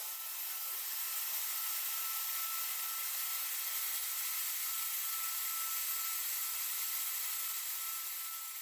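A 3-axis CNC machining centre running, a steady hiss with a faint thin whine that comes and goes. The sound fades out near the end.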